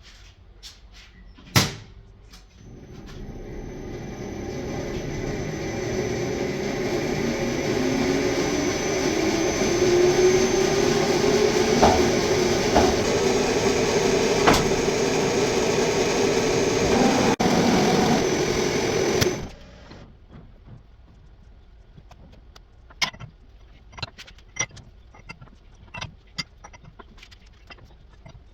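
Metal lathe switched on with a sharp click, its motor and spindle running up to speed with a rising hum, then running steadily and loudly. The sound stops abruptly about 19 seconds in, followed by faint scattered ticks.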